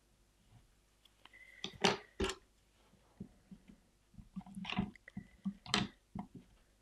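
Sugarcraft modelling tools clicking and tapping on the work board as they are set down, picked up and used on the petals. Two sharp clicks come about two seconds in, and a cluster of lighter taps and knocks follows around four to six seconds in.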